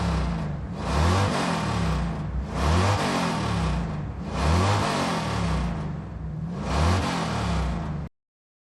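Car engine revved again and again, about every two seconds, each rev rising and falling in pitch, then cut off abruptly near the end.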